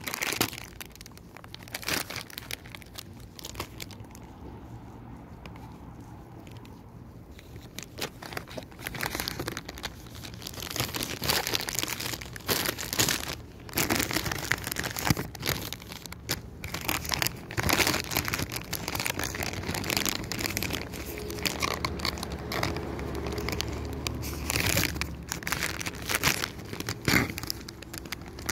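Thin plastic wrapper of a packaged butter bun crinkling and crackling as it is handled, over and over, busier in the second half. A low steady hum runs underneath.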